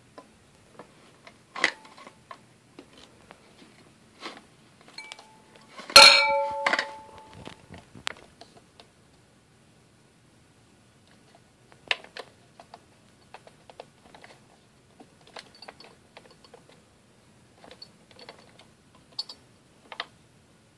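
Handling noise from a vintage GE stand mixer and its mixing bowl, with the motor off: scattered light clicks and taps. About six seconds in there is one sharp clink that rings briefly at several pitches.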